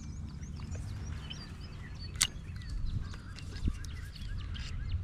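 Small birds chirping in quick, short notes over a steady low rumble. Two sharp clicks come about two seconds and three and a half seconds in.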